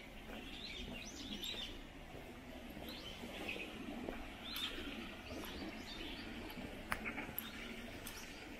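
Small birds chirping and twittering repeatedly in short, irregular calls, with one sharp click about seven seconds in.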